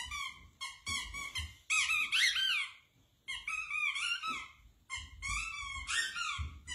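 Squeaky dog toy being chewed by a dog, giving several runs of quick, high squeaks with short pauses between them.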